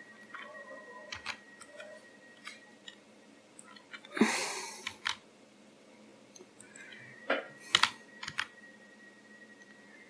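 Computer keyboard keys and mouse buttons clicking in short, scattered presses while shortcuts are used in a 3D modelling program. A brief, louder burst of noise comes about four seconds in, and a few sharper clicks come near the eight-second mark.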